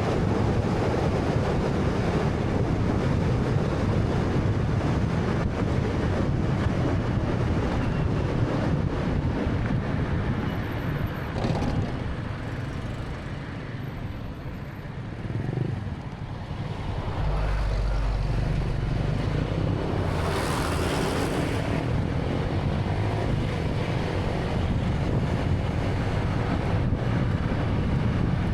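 Road and wind noise from a moving 2013 Honda Fit: a steady tyre and wind rumble that eases for a few seconds about halfway through, then returns with a deeper rumble and a brief hiss about twenty seconds in.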